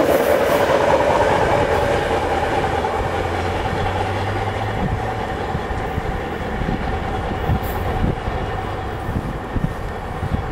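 Loaded coal hopper wagons of a freight train rolling past, their wheels clattering over the rail joints with a steady rumble that slowly fades as the end of the train goes by.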